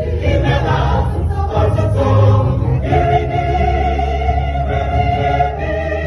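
Choir singing a gospel hymn in harmony, with long held notes and a sustained chord through the second half.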